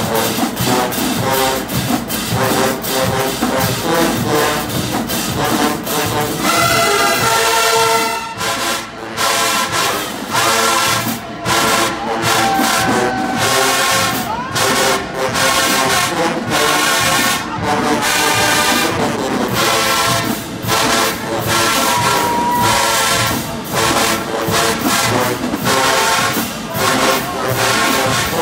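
Marching band playing: sousaphones, horns and a drum line, with a steady drum beat, and the full brass section coming in with held chords about six seconds in.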